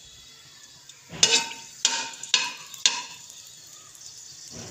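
A spoon stirring whole cinnamon and cloves as they fry lightly in hot ghee in a metal kadhai: four or five short scraping knocks against the pan over a faint sizzle.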